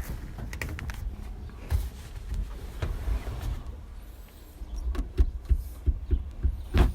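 Irregular knocks and clicks of hands working around a truck cab, over a low rumble, with the loudest knock near the end.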